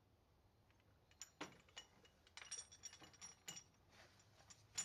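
Faint, scattered metallic clinks and taps as a belt idler pulley bracket and its bolts are handled and set against the engine's front.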